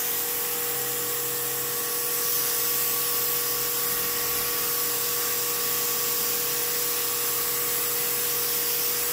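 Kärcher pressure washer running steadily, its pump humming under an even hiss of spray as wash foam with wax is sprayed onto the sprayer's frame.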